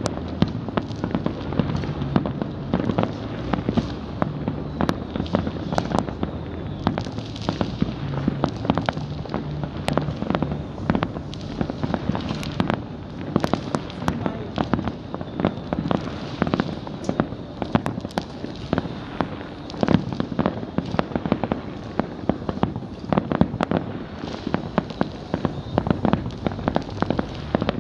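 Fireworks going off without a break: a dense, irregular barrage of sharp bangs and pops, several a second, over a steady low rumble.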